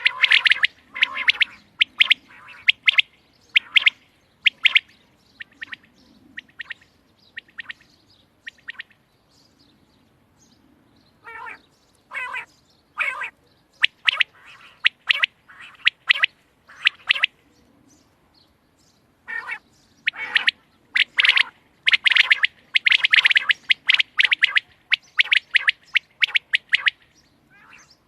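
Quail calling: clusters of short, sharp, high chirping calls repeated in quick runs, with brief pauses between runs.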